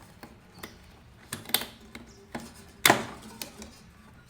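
Hand tools being handled on the mower: a few scattered clicks and knocks, with the loudest clack about three seconds in.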